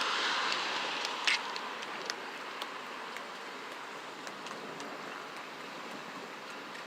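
Derecho storm wind rushing, a loud gust easing off over the first few seconds and then blowing steadily, with scattered sharp ticks.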